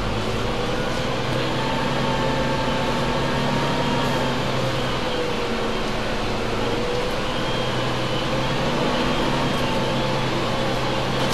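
Diesel engine of a double-decker bus idling steadily, heard from over the axle: a low hum with a slightly wavering tone.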